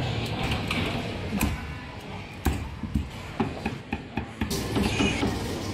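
Meat cleaver chopping roast meat on a thick wooden chopping block: a series of irregular sharp knocks over steady background noise.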